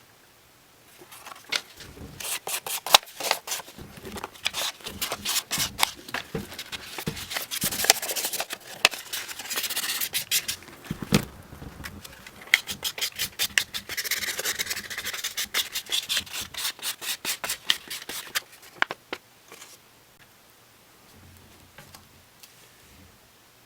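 Brisk back-and-forth rubbing strokes on a shoe, several a second, in two long runs, stopping about nineteen seconds in.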